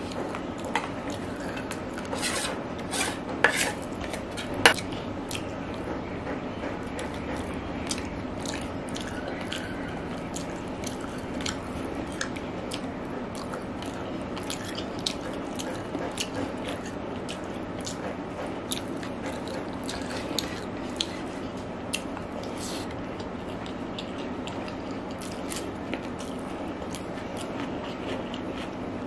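A steel spoon clinking and scraping against a plate as gravy is served, with a few sharp clinks in the first five seconds. After that, fingers mix rice with gravy and the eater chews, making many small wet clicks over a steady background hiss.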